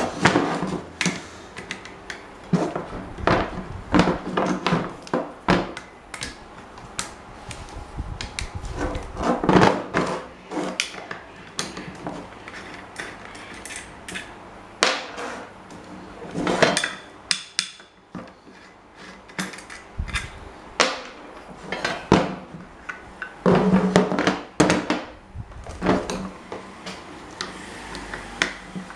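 Irregular clanks, knocks and taps of metal parts and tools being handled on a workbench while an old rusty table fan is worked on, some struck hard, with short quieter gaps between clusters.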